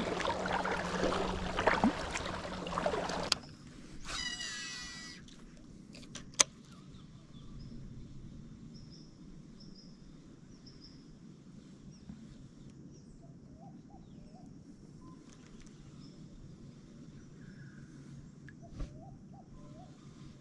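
Kayak paddle strokes splashing and dripping water for about three seconds, then they stop. Quiet open-water ambience follows, with a single sharp click and faint short bird chirps.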